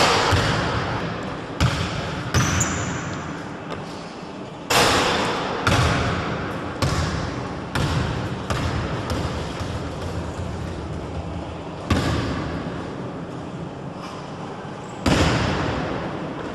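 Basketball bouncing on a hardwood gym floor, a string of sharp thuds at uneven gaps of one to three seconds, each echoing in a large sports hall. Three louder strikes come about five, twelve and fifteen seconds in.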